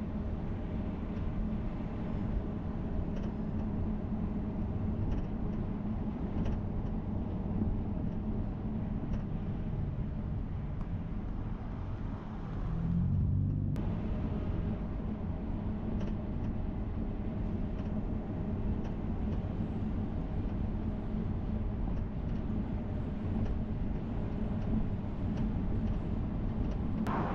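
Steady engine and road noise of a moving car, with a brief swell in engine sound a little under halfway through.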